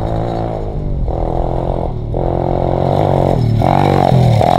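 Tao Tao 125 pit bike's 125 cc single-cylinder four-stroke engine running hard under full throttle. Its revs drop briefly twice, at gear changes, and it gets louder as the bike passes close by near the end.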